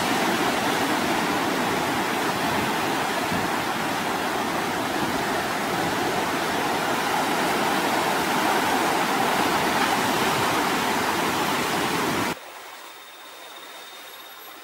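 Heavy surf from a rough sea, a dense, steady rush of breaking waves. About twelve seconds in it cuts off suddenly to a much quieter background with a faint, steady high tone.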